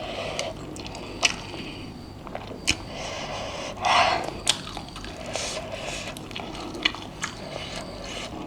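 Close-miked eating of spicy instant noodles: wet chewing and slurping, with a few sharp clicks and one louder noisy stretch about four seconds in.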